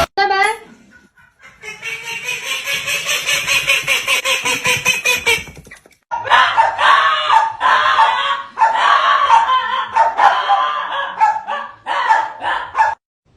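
An animal calling over and over in quick, pitched repeated calls, in two bouts with a brief break about six seconds in, cutting off abruptly near the end.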